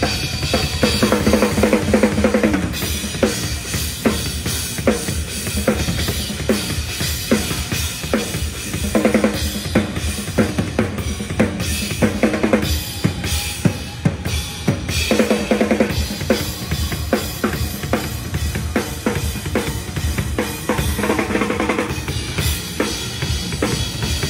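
A metal drum kit played hard and fast: a rapid, almost unbroken stream of bass-drum strokes under snare hits and cymbals. Several times it breaks into quick fills down the toms.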